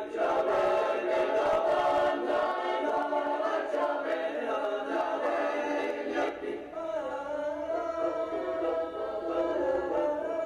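Background music: a choir singing sustained, slowly moving chords.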